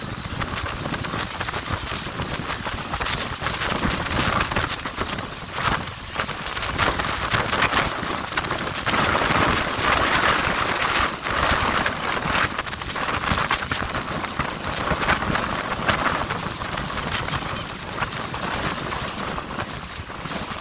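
Steady rushing noise of wind and water on the open deck of a tour boat under way, rising and falling in gusts and loudest about halfway through.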